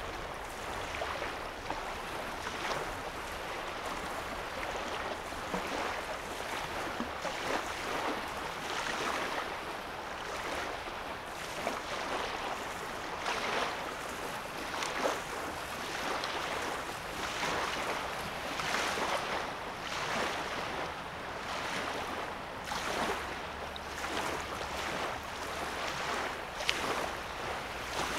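Small waves lapping at a lake shoreline, a soft wash swelling every second or two, over a faint low rumble.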